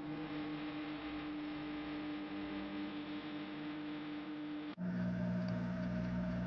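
Steady electrical hum over a faint hiss. Almost five seconds in it cuts off abruptly and a lower, steady hum takes over.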